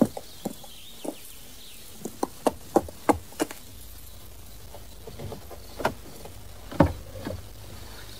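Horse hooves clopping on hard ground as a run of sharp knocks, quickening briefly, then thinning out to a few single steps in the second half.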